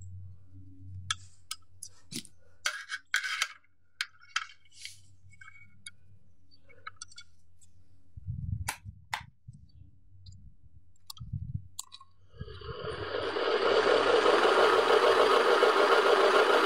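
Scattered light clicks and knocks of the fan motor and its wiring being handled. About twelve seconds in, the repaired ceiling fan motor, with its broken lead rejoined, is switched on through a series test lamp; it spins up over a second or so and runs with a steady whir.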